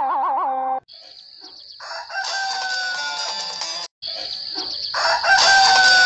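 Cartoon rooster-crow sound effects cut one after another: a warbling tone breaks off under a second in, then two crows follow, each with a long, slightly falling held note.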